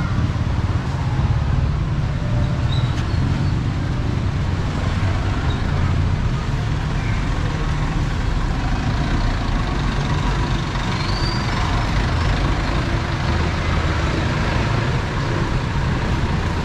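Busy city street traffic: a steady low rumble of vehicle engines from passing jeepneys, vans and motorcycles.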